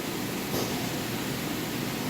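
Steady hiss of a wire EDM machine cutting metal, with a faint click about half a second in.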